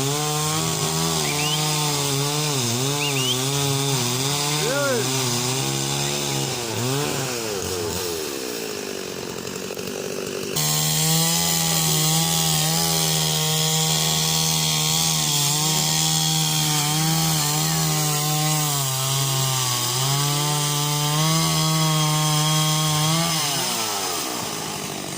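Chainsaw running at high revs while cutting wood, its pitch wavering throughout. The revs sink about seven seconds in, come back suddenly at about ten and a half seconds, and die down near the end.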